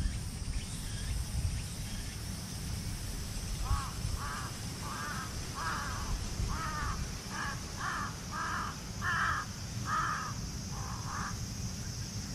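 A crow cawing in a long, even series of about eleven short calls, roughly one and a half a second, starting about a third of the way in, over a steady low background rumble.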